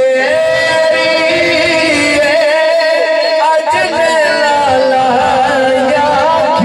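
A man singing a Punjabi Sufi kalam in a solo voice, with long, ornamented held notes.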